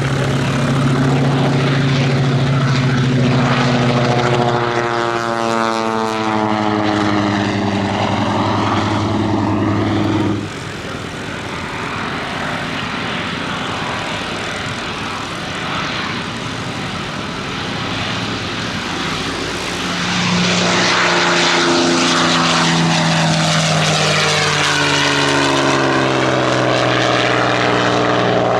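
A Curtiss SB2C Helldiver's big radial engine at full power goes past, its pitch falling, and cuts off suddenly about a third of the way in. A quieter engine sound follows, then a P-51D Mustang's Merlin V-12 grows loud about two-thirds in and goes by with its pitch dropping.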